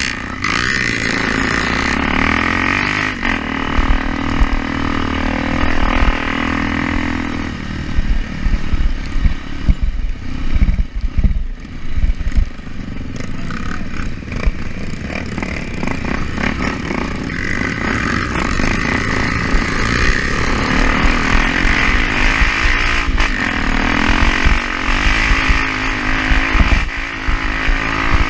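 Off-road motorcycle engine running under way, its pitch stepping up and down with the throttle. Heavy low rumbling and thumping comes through the middle stretch.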